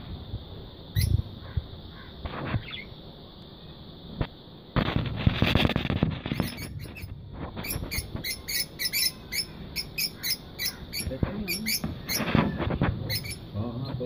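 Lutino lovebirds chattering in short, shrill chirps, coming thick and fast from about six seconds in, over a steady high-pitched drone and a low rumble.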